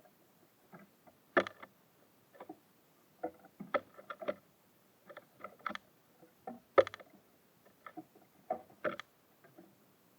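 Irregular sharp taps and knocks of small birds pecking and landing on a wooden bird feeder, about a dozen in all, the loudest a little over a second in and again near the middle.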